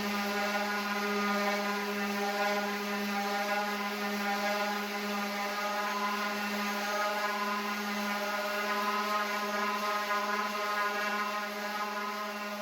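An electric power tool's motor running at a steady speed, a constant whirring hum.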